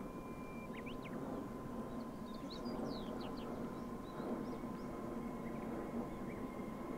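Small birds chirping in short, quick falling notes, in a cluster about a second in and another around three seconds in. Underneath is a faint steady low rumble and a thin steady tone.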